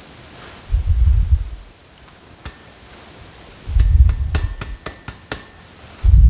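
Three dull low thumps with light taps and clicks between them, as bent exhaust tubing is shifted on its wooden blocks and a level is held against it.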